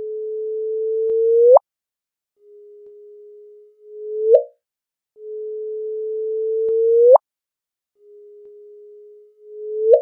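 Sonified LIGO gravitational-wave chirp from merging black holes, the December 2015 signal played at higher frequencies as a pure tone. It is heard four times: a steady tone that creeps up in pitch and loudness, then sweeps sharply upward and stops. Louder chirps ending in a high sweep alternate with quieter ones ending in a short upturn. The sweep marks the black holes' final spiral and merger.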